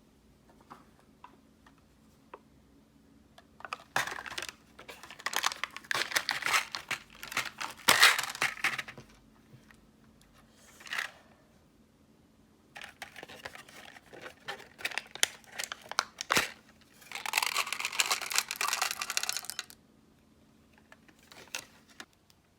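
Crinkling and tearing of packaging being handled, in several bursts with sharp clicks, the loudest about eight seconds in and another long burst near the end.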